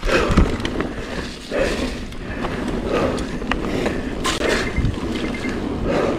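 Mountain bike descending a dirt trail at speed: a steady rush of tyre noise over dirt, broken by irregular knocks and rattles from the bike over bumps.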